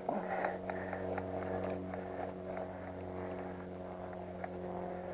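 A steady low hum that holds one pitch throughout, with faint scattered ticks and rustles over it.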